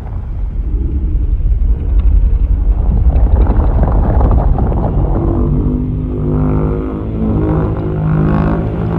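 A monster-movie sound effect: a heavy, deep rumble that builds over the first few seconds, joined by a steady pitched drone from about halfway through.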